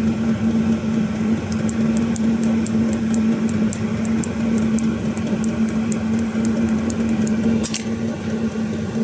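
5 kW Chinese diesel heater running on full: a steady combustion-blower hum and roar, with faint fast ticking about four times a second from the fuel dosing pump and a short click near the end.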